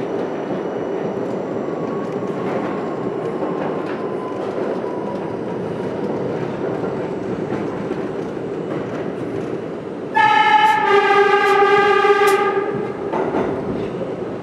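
R32 subway train running steadily through a tunnel, with wheel and running-gear rumble. About ten seconds in, the train horn sounds one loud blast of about two and a half seconds, a second, lower tone joining shortly after it starts.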